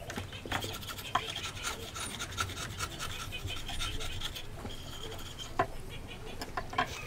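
Wood chisel pushed by hand, paring and scraping wood from a joint: a dense run of small scratchy rasping strokes, with a few sharper clicks about a second in, past five seconds, and near the end.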